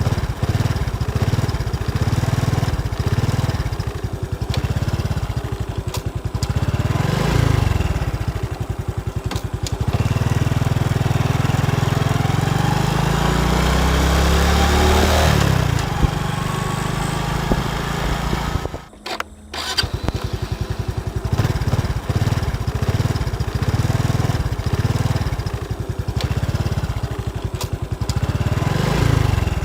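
Honda Wave 110i motorcycle's small single-cylinder four-stroke engine idling with a rapid pulsing beat, revved up and back down several times, the longest rev rising over a few seconds near the middle. About two-thirds of the way through the engine sound drops out for about a second, then it runs at idle again.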